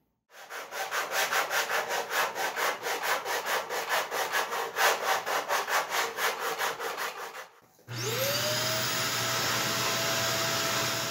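Hand sanding of a wooden model-boat sponson ride pad, sandpaper rubbing back and forth in quick even strokes, about four a second. About eight seconds in, a shop vacuum switches on with a rising whine and then runs steadily.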